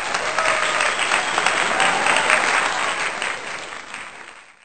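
Crowd applause sound effect: dense clapping that fades out near the end.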